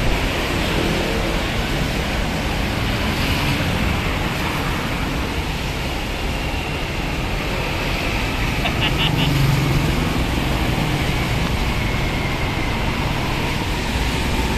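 Steady traffic noise from busy multi-lane highway, tyres hissing on the wet road, with a heavier vehicle growing louder as it passes about nine to ten seconds in. Four quick high beeps sound just before it.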